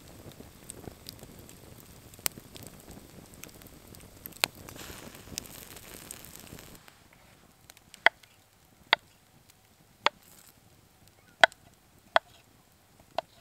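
Campfire crackling with a couple of sharp pops. About seven seconds in it gives way to a knife slicing small potatoes on a wooden cutting board: six sharp knocks, roughly a second apart.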